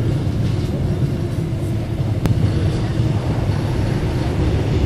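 Subway train running, heard from inside the car: a steady low rumble with a rushing noise over it. A single sharp click a little over two seconds in.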